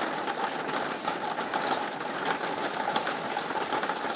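Heavy rain falling steadily, a dense patter of many small drops.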